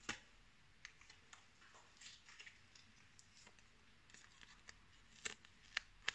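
Panini football sticker being peeled off its backing paper by hand: scattered faint paper crackles and small clicks, with a few sharper clicks near the start and near the end.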